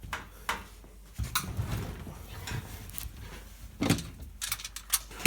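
Knocks and clunks from a dishwasher being stood back upright and its door opened, several separate knocks with the loudest near the end.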